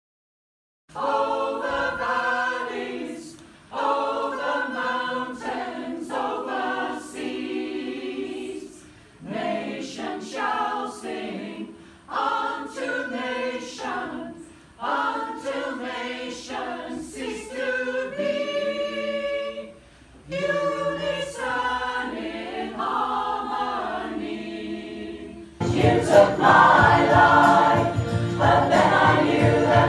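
Choir singing in phrases with short breaks between them, starting about a second in. Near the end a larger choir comes in, fuller and louder.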